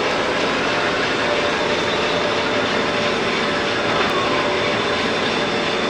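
CNC lathe turning a metal-spinning form: a steady, continuous machining noise of the running spindle and cut, with a faint steady high whine in it.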